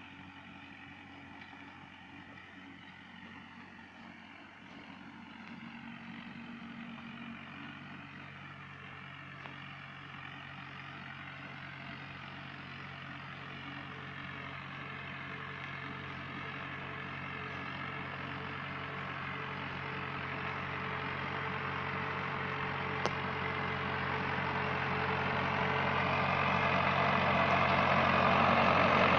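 Hindustan tractor's diesel engine running steadily under load while dragging a land leveler across dry soil. It grows steadily louder as it draws near and passes close by near the end.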